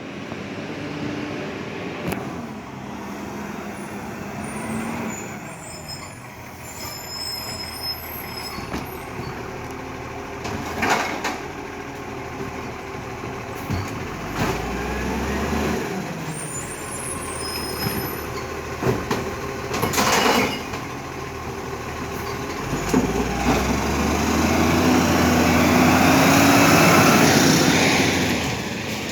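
Iveco ACCO side-loader garbage truck running, with sharp air-brake hisses twice, about a third and two thirds of the way through, and the engine getting louder near the end.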